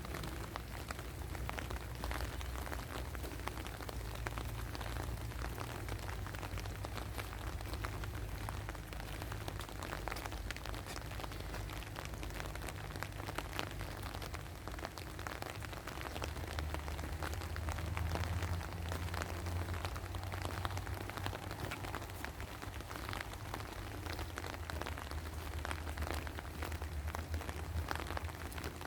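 Steady rain falling, with many close, sharp drop ticks over the patter, and a low rumble underneath that swells about halfway through.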